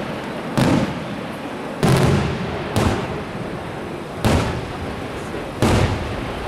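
Aerial firework shells bursting overhead: five loud reports a second or so apart, each trailing off in a short echo.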